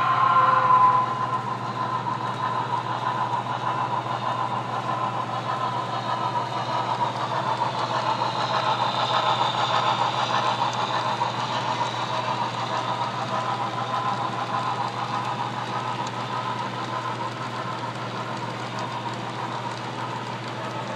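HO-scale Broadway Limited Paragon2 4-6-2 Pacific's onboard sound system playing running-steam-locomotive sounds, mixed with the rolling rattle of model freight cars on the track. It is loudest as the boxcars pass close by and then slowly fades.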